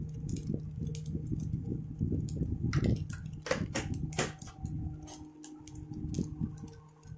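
Fried rice cooking in a wok on the stove: scattered light clicks and taps, with a few sharper clicks around the middle, over a steady low hum.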